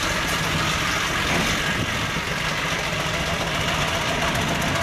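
A coal-fired 1924 Foden C-type steam wagon running steadily as it drives past and away.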